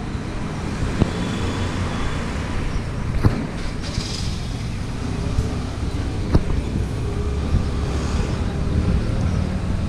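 Street traffic: motor vehicles running and passing, a steady low rumble with a few sharp clicks.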